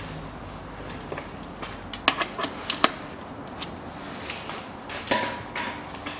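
A 6 mm hex key working the drain plug of a Toyota Camry XV50's automatic transmission pan as the plug is unscrewed. There are several sharp metallic clicks about two seconds in, then a shorter scraping noise about five seconds in.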